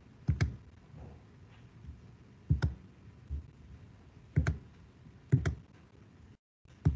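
Clicking at a computer: about five close pairs of sharp clicks, spread a second or two apart.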